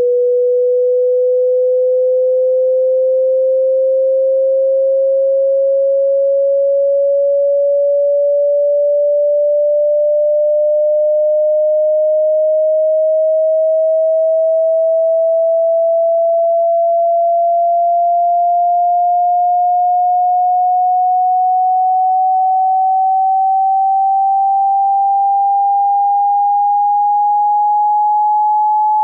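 A single pure test tone gliding slowly and steadily upward in pitch at a constant loudness: a hearing-test frequency sweep.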